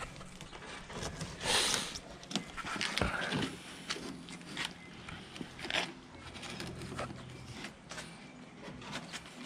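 Cardboard shipping box being handled and opened by hand: irregular rustling and scraping of cardboard and packing tape, with scattered light knocks, loudest about one and a half seconds in.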